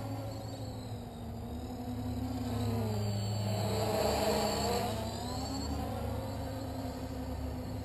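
SKY-Hero Little Spyder quadcopter in flight: its Cobra 2217 950kv brushless motors and 10x4.5 propellers make a buzzing whine. The pitch wanders down and back up, and the sound is loudest about four seconds in.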